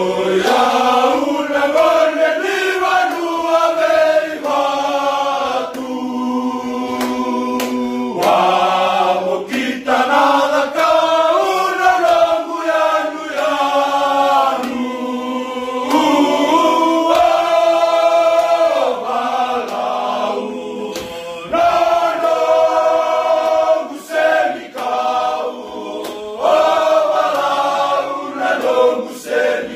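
A group of men singing together unaccompanied in Fijian, in close harmony, with long held phrases and brief pauses between lines.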